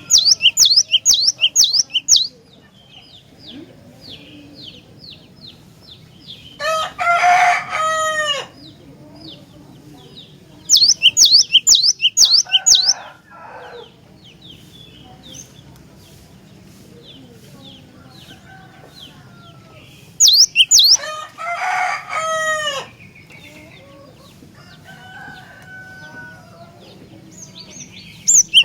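Cinereous tit (glatik batu) song: runs of quick, high, repeated notes, three loud runs with quieter singing between. Twice, a louder, lower series of calls cuts in.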